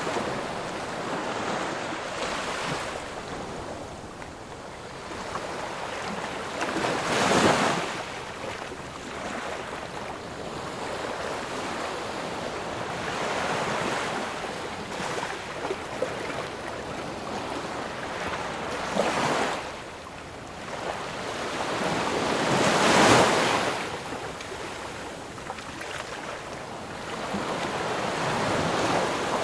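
Ocean surf: a continuous wash of waves, with the biggest waves swelling and breaking about seven seconds in and again about twenty-three seconds in, and a smaller one around nineteen seconds.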